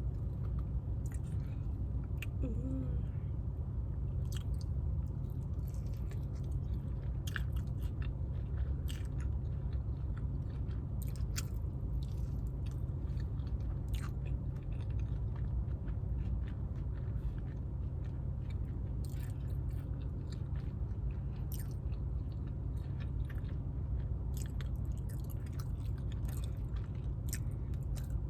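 Close-up chewing and biting of fast-food chicken tenders and fries, with scattered crunches and wet mouth clicks, over a steady low hum.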